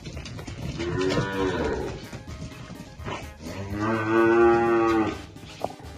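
Weaned Girolando calves mooing: a short bending moo about a second in, then a longer, louder, steady moo lasting about a second and a half.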